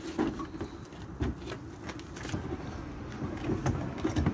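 Metal clanks and rattles from a bike cargo trailer's metal frame and tow arm as it is stood on end and the arm folded against it, with several sharp knocks.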